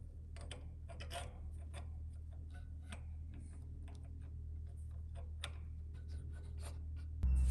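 Irregular small clicks and taps of a DRO scale mounting block and its bolts being handled and fitted by hand onto a support pin on a milling machine table, over a steady low hum.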